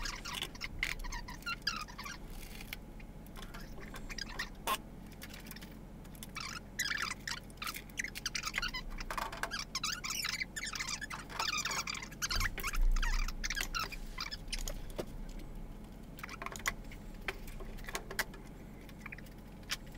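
Small aluminum aircraft rivets clinking and a plastic bag crinkling as a hand rummages through the bag of rivets, with scattered light metallic clicks and taps. A low thump comes about twelve seconds in.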